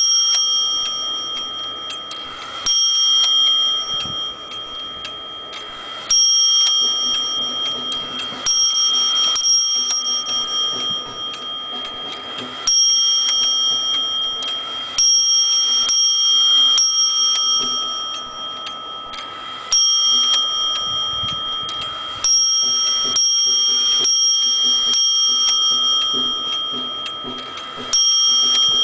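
Vintage Dutch wall clock striking its bell about a dozen times at uneven intervals, each stroke ringing on and fading. The strikes come as the clock's hands are turned by hand.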